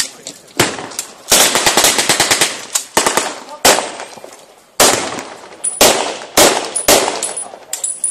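Small arms firing blanks in a mock battle: single rifle shots mixed with rapid strings of shots. The longest bursts run about a second each, one near the start and one in the middle.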